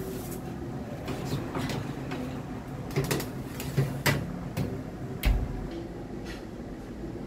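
Metal baking trays sliding onto the wire racks of a countertop convection oven and the oven door being handled, giving several sharp clacks and knocks of metal on metal, the loudest a little past the middle. Underneath runs a steady hum from the oven's fan.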